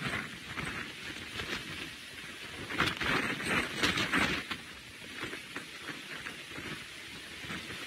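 Hurricane wind and driving rain, gusting in irregular surges, with the strongest gusts about three to four and a half seconds in.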